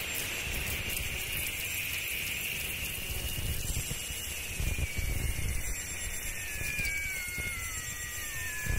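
Runway soundtrack music in an instrumental stretch without vocals: a hissing electronic wash with a high tone that falls step by step through the second half.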